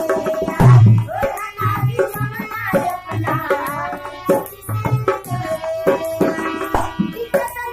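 Bhojpuri folk song performed live: women singing over a harmonium's held chords, with a dholak drum beating a steady rhythm.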